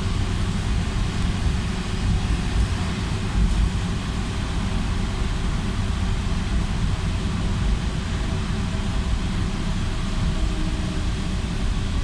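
Interior of a BKM 60102 tram underway: a steady rumble of the wheels and running gear on the rails, with a faint steady hum from the drive.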